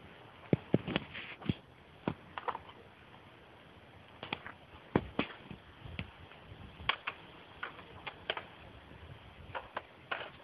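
Irregular light clicks and knocks, a dozen or so scattered unevenly, over a faint steady hiss.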